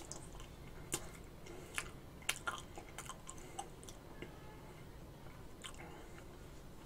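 Quiet eating of ice cream with a metal spoon from a glass bowl: soft chewing and a handful of short, scattered clicks.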